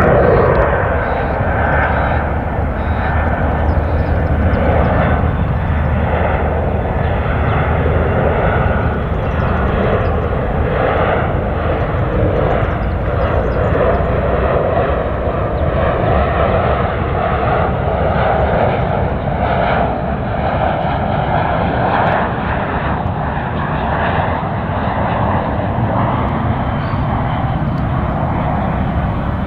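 Qantas Freight Boeing 737-300 freighter on final approach for landing, its CFM56 jet engines running in a steady, continuous rush as it passes.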